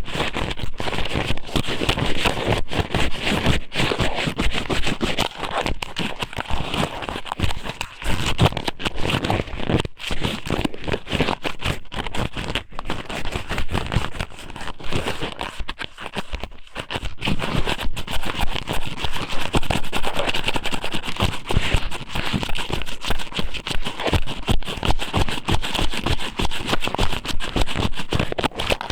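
Thin strips of raw squid (ika sōmen) pushed into and rubbed around the ear of an ear-shaped binaural microphone, right against the mic. It makes a dense, continuous crackling and scraping that eases off briefly twice.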